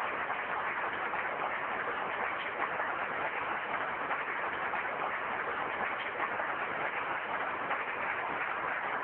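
A large crowd of people clapping steadily: dense, even applause.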